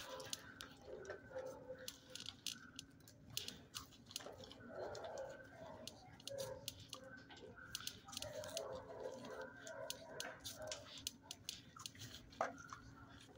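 A dog chewing and smacking on chicken slices: a rapid, irregular run of small wet clicks. A steady low hum and muffled mid-pitched sounds lie beneath it.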